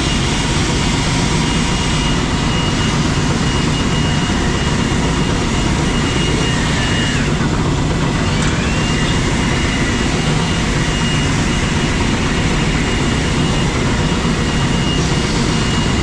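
Farm machinery running steadily, with a constant high whine over a dense mechanical noise; about seven seconds in the whine drops in pitch and climbs back about a second and a half later.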